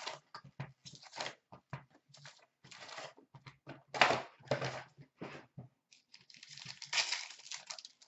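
Foil-wrapped Upper Deck SP Authentic hockey card packs and their cardboard box being handled: irregular crinkling, rustling and light clicks as packs are pulled out and stacked. There are louder bursts of crinkling about four and seven seconds in, the second as a pack is being torn open.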